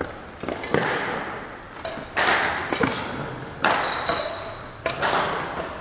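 Badminton rally: sharp racket strikes on the shuttlecock and players' footfalls on the court, every second or so, echoing in the sports hall, with a brief high shoe squeak a little after four seconds in.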